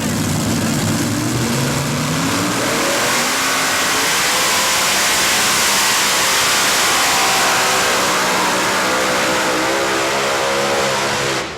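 Heavy modified pulling tractor's engines running at full power during a pull, the pitch climbing over the first few seconds and holding high. The sound cuts off suddenly near the end.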